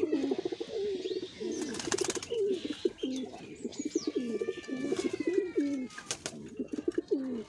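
Several giribaj pigeons cooing continuously in a loft, a pair squabbling with one another, with brief wing flaps about two seconds in and again near six seconds.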